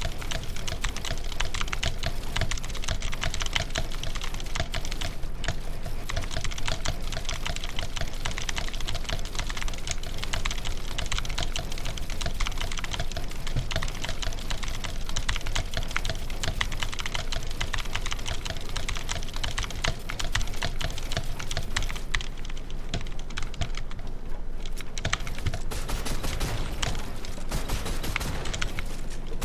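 Typing on a computer keyboard: fast, continuous key clicks with no pauses.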